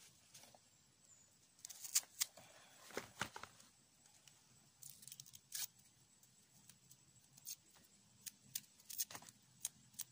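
A red onion being cut with a large knife and its papery skin peeled off by hand: scattered short crackles and snaps, the loudest around two and three seconds in.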